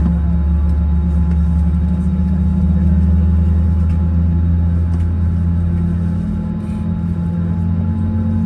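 Steady low hum heard inside the cabin of an Airbus A321 on the ground, with a tone that slowly rises in pitch over the second half.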